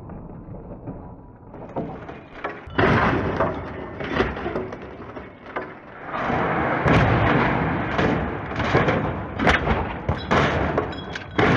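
Volvo XC60 rolling over in a crash test, its body crashing down onto the pavement and tumbling. There is a heavy impact about three seconds in, then a longer run of repeated crashes, bangs and scraping.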